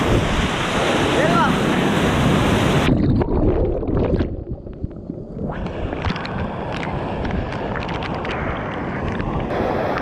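Waterfall rushing into a rock pool, a loud, dense roar. About three seconds in the rush turns muffled and thinner, then comes back weaker with scattered splashes and drips.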